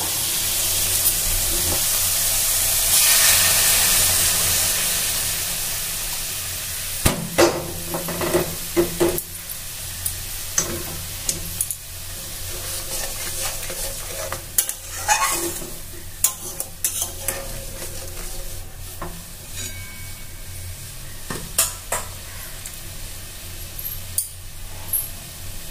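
Water poured onto hot fried spice paste in a metal kadai hisses loudly. The sizzle fades over several seconds while a spatula scrapes and knocks against the pan, stirring the thin gravy as it comes to a simmer.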